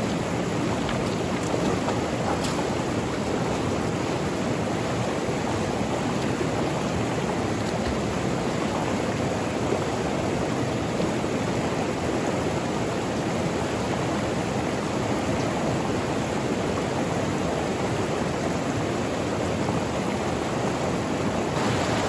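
River rapids rushing over boulders, a steady, even roar of white water.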